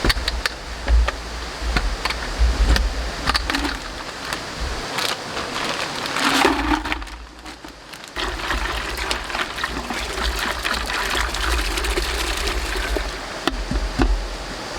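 Valley stream rushing steadily, with scattered light clicks and knocks over it and a brief quieter dip about seven seconds in.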